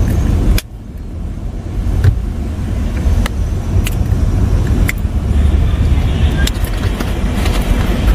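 Car interior noise from a stopped car: a steady low rumble that drops sharply about half a second in and then carries on, with a few light clicks.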